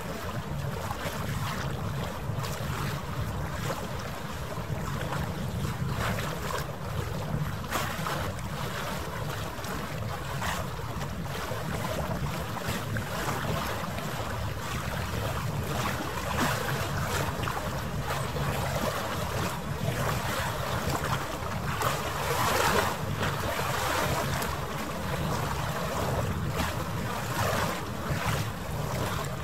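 Wind buffeting the microphone over harbour water: a steady rush with a low rumble and frequent short gusts, the whole soundtrack sped up nearly threefold.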